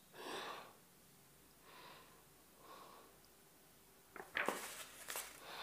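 Soft breaths close to the microphone. About four seconds in comes a short flurry of paper rustles and clicks as a workbook page is turned.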